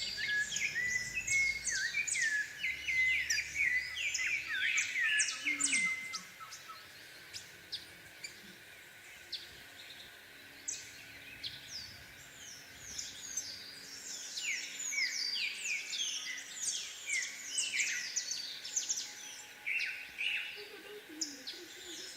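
Several small songbirds chirping and singing at once, a dense chatter of quick high notes and short glides. It thins out about six seconds in and fills again a few seconds later.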